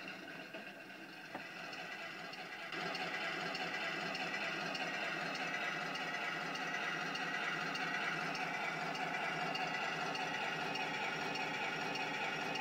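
Simulated tank engine idling, played by an IBU2 Pro sound unit through a transducer in the hull of a Heng Long RC Panther tank, with an even low pulse. It steps up in loudness about three seconds in and then runs steadily.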